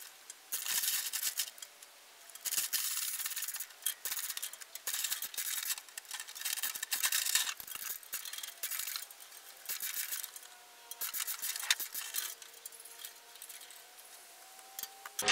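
Chain fall's chain rattling and clinking in a dozen or so short, irregular bursts as it is worked to free or slacken it, with a faint wavering squeak in the last few seconds.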